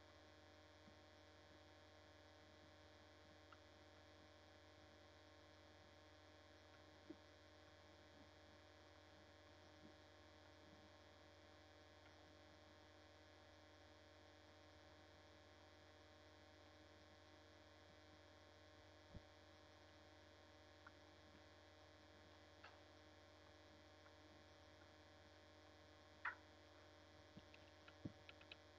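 Near silence with a steady electrical mains hum and a few faint, isolated clicks.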